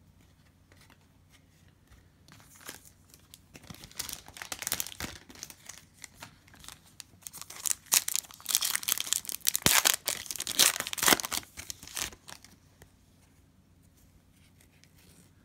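Shiny foil trading-card pack wrapper crinkling and tearing as it is ripped open by hand. It starts about two seconds in, is loudest a few seconds before it stops, and goes quiet near the end.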